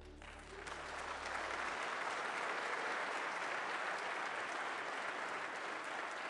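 Congregation applauding, swelling in over the first second and then holding steady, while the last low note of the accompaniment dies away under it.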